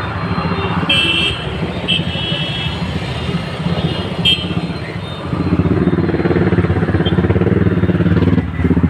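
Street traffic: motorcycle engines running, with short horn toots about one, two and four seconds in. In the second half a louder engine passes close.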